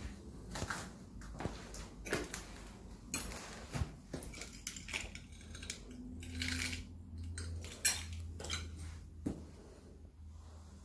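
Footsteps crunching over shattered glass and debris: an uneven series of sharp crunches and clinks.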